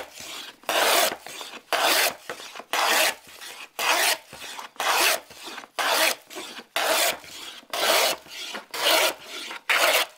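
Scrub plane taking heavy cuts on a board, its blade set well out: about a dozen short, coarse rasping strokes in quick, even succession, roughly one a second.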